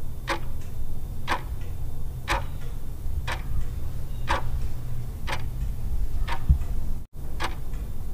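Ticking-clock sound effect for a quiz countdown timer: a strong tick about once a second with a softer tick between, over a low steady hum. It briefly cuts out about seven seconds in.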